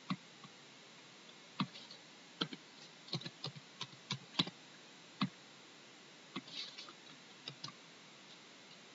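Faint, irregular clicks of a computer keyboard and mouse, with a quick run of key presses about three to four and a half seconds in.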